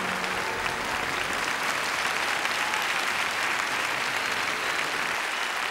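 Studio audience applauding steadily, with the last low notes of the act's music dying away in the first second or so.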